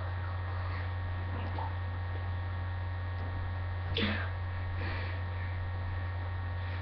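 Steady low mains hum, with one brief faint falling sound about four seconds in.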